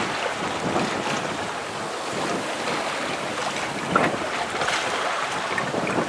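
Sea rushing and splashing past the hull of a Halmatic 30 sailing yacht underway, with wind buffeting the microphone. The noise swells and eases, with one louder splash about four seconds in.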